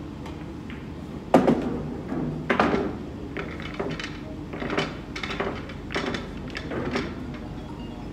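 Pool balls clacking: one loud sharp knock about a second in, then a dozen or so lighter knocks over the next several seconds.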